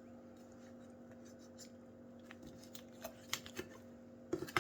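Knife cutting through a raw chicken's leg joint: a few short clicks and crackles about three seconds in and again near the end, over a steady low electrical hum.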